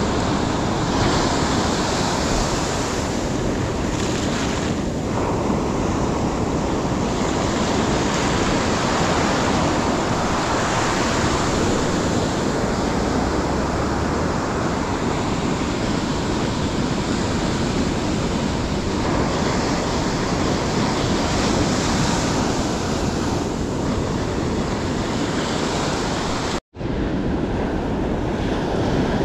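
Ocean surf breaking and washing up the beach, with wind buffeting the microphone. The sound cuts out for an instant near the end.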